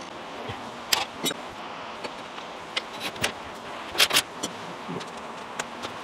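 Scattered sharp metallic clinks of a wrench working the fittings on a skid steer's auxiliary hydraulic coupler block, with the loudest pair about four seconds in.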